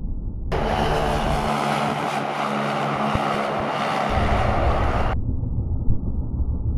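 A car speeding past and braking, its engine drone and tyre noise heard at real speed from about half a second in. About five seconds in, this gives way to the same kind of pass slowed down: a dull, low rumble.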